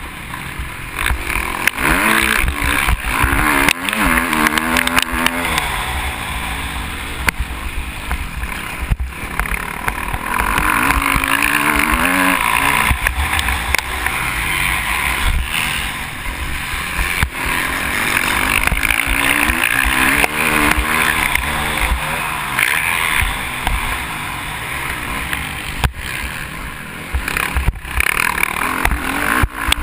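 KTM SX-F 350 single-cylinder four-stroke motocross engine at race pace, revving up and falling back over and over as the rider works the throttle and gears, heard through a GoPro housing with wind noise and knocks from the bumps.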